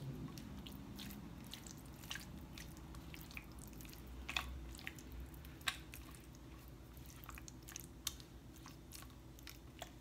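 Silicone spatula mixing fish fillets through a thick yogurt-and-spice marinade in a glass baking dish: faint wet squelching with irregular small clicks and taps.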